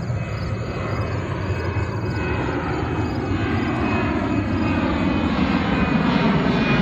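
Twin-engine jet airliner passing low overhead: a steady jet-engine rush that grows louder toward the end, with faint falling tones above it.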